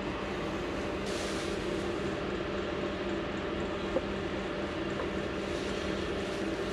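A steady low mechanical hum, with a brief rustle about a second in and a single light tap about four seconds in as the gasketed valve cover is set down onto the engine's cylinder head.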